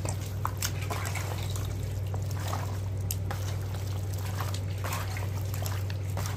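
Wet squelching and squishing of a bare hand kneading raw chicken pieces in a spice-paste marinade in a bowl, in short irregular bursts over a steady low hum.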